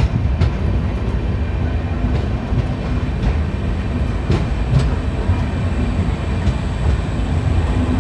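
Hirakhand Express passenger train running on the rails: a steady rumble with occasional clicks of the wheels over rail joints.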